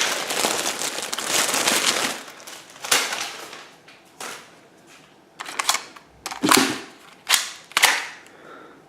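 Crinkling of plastic packaging for about two seconds, then a string of sharp clicks and clacks from handling a free plastic airsoft 1911 pistol.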